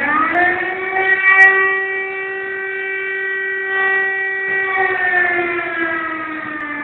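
Fire station siren winding up in pitch over the first second, holding one steady wail, then slowly falling in pitch from about five seconds in.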